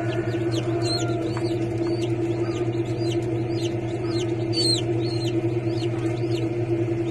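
Chicks peeping during hatching: a quick series of short, high peeps that fall in pitch, two or three a second, over a steady low hum.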